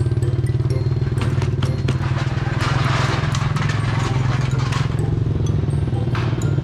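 An engine running steadily with a low, fast-pulsing drone, with crackling and rustling noise over it that swells about three seconds in and again near the end.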